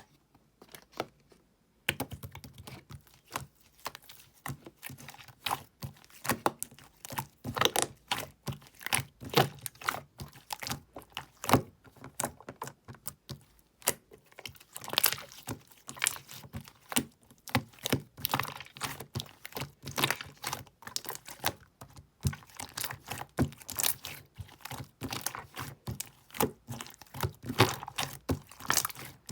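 Opaque slime worked by hand, making a dense, irregular run of sticky clicks and small pops that starts about two seconds in.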